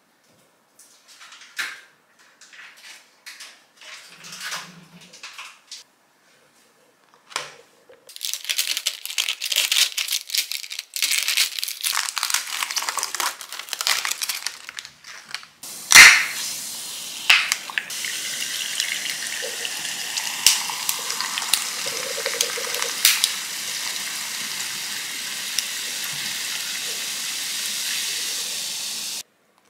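Plastic wrapping on a pickled-radish container crinkles for several seconds. Then, after one sharp crack (the loudest moment), Dr Pepper Zero is poured over ice and fizzes steadily with small ice clicks, until the sound cuts off near the end.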